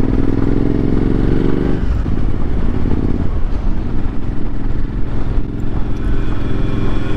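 Suzuki V-Strom motorcycle engine pulling under acceleration, with wind and road noise. It rises in pitch for the first couple of seconds, then drops about two seconds in and runs on steadily.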